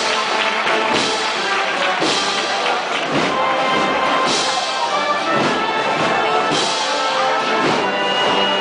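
Brass band playing a processional march behind a Holy Week palio: sustained brass melody over repeated drum strokes.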